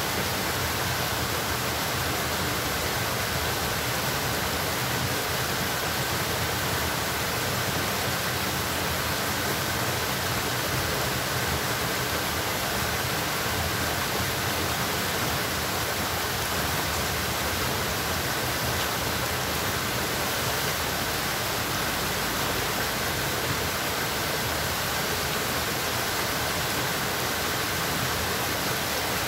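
Steady rush of flowing water, an even hiss without breaks.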